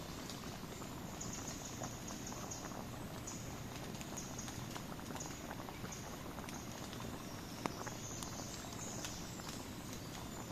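Wood fire burning with steady crackling: many small pops and snaps over a low rush, and one sharper pop about three-quarters of the way through.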